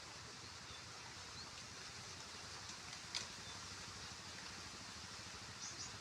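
Faint steady outdoor hiss, with a single sharp click about halfway through and a couple of softer ticks near the end.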